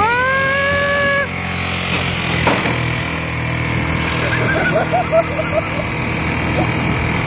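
A vehicle horn honks once for about a second, rising in pitch as it starts and then holding steady, over steady engine and road noise from traffic.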